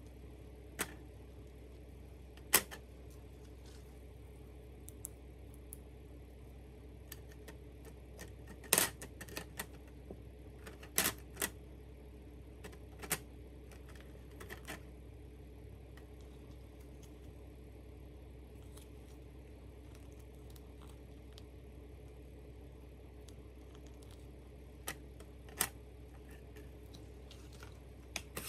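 Scattered light clicks and taps of plastic toy barbecue pieces (a plastic grill rack, toy meat slices and plastic tongs) being picked up and set down on a tabletop, over a faint steady low hum.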